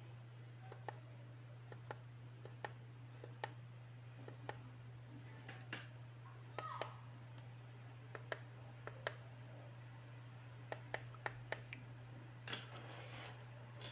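Push buttons on a CXY TC17 cordless tire inflator clicking as they are pressed one at a time to step through pressure presets and modes: a dozen or more sharp clicks at irregular intervals, with a quick run of clicks late on, over a steady low hum. A brief rustle of handling comes near the end.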